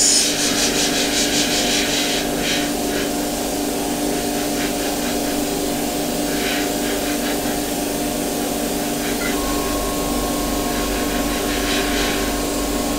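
Airbrush spraying paint: a steady hiss of air over a steady mechanical hum. About nine seconds in, a further low hum and a steady higher tone join in.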